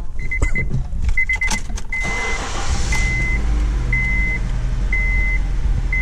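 2011 Honda Civic's inline four-cylinder engine cranked by the starter for about a second, then catching and idling with a cylinder 3 misfire (P0303), blamed on a bad ignition coil. Over it the car's warning chime beeps, in quick pulses at first and then about once a second.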